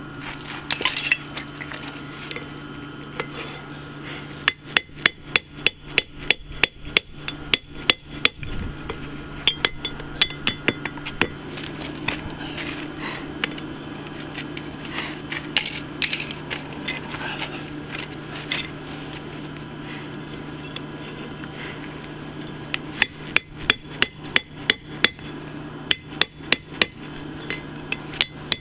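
Hand hammer striking a steel punch driven into the hole of a red-hot railroad spike on an anvil, enlarging the eye of a bottle opener: two runs of sharp metallic strikes, a couple to three a second, with a pause of several seconds between them.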